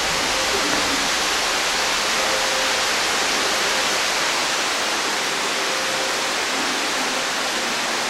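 Underground cave stream rushing over rocks, a loud, steady rush of water.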